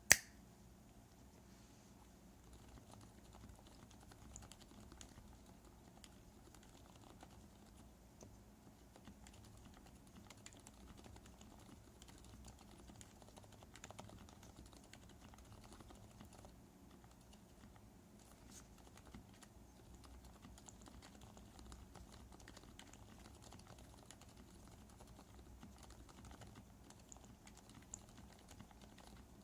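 Typing on a mechanical keyboard with lubed Zilent silent tactile switches under Outemu Ice V2 top housings: a steady run of faint, muted keystrokes. One sharp, much louder click comes right at the start.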